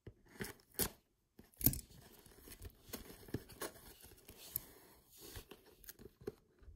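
Scissors cutting the tape seal on a small cardboard Beyblade box, with scattered snips, scrapes and rustles as the box is handled; the sharpest click comes about a second and a half in.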